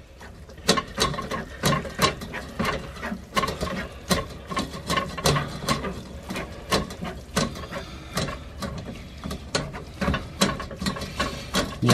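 Back of a wooden spoon pressing and scraping soft cooked onions through a stainless-steel wire-mesh sieve over a saucepan: repeated short scrapes and clicks, a few a second, at an uneven pace.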